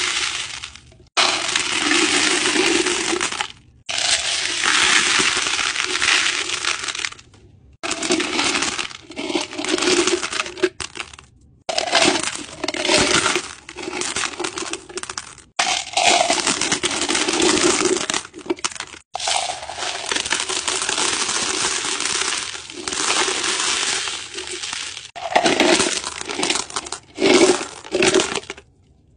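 Small crystal chips and tumbled stones poured from a glass jar into a bowl and stirred by hand, a string of rattling, clinking pours, each lasting one to a few seconds, with short silent gaps between them.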